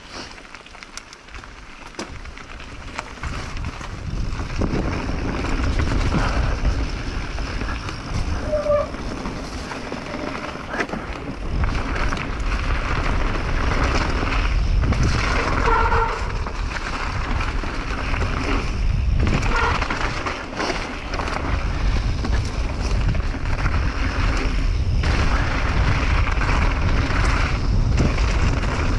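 Mountain bike riding down a trail: wind rushing over the camera microphone with the rumble of the tyres, rising over the first few seconds as the bike picks up speed, with a few short squeaks along the way.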